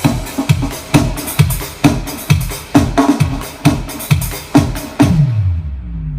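Live band music with a drum kit keeping a steady beat of about two hits a second, heavy on the kick drum. It ends on a low note that slides down and dies away about five seconds in.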